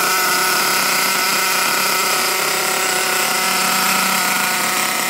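HPI Trophy Truggy 4.6's small two-stroke nitro engine running steadily at a constant speed, the high buzzing note never changing. The engine is brand new and being run in.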